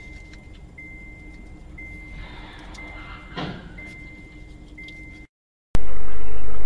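Dash-cam audio from inside a moving car: steady low road noise, with a high electronic beep that sounds almost without break and stops briefly about once a second. A short louder noise comes about three and a half seconds in. After a cut, a loud, steady car horn blares near the end.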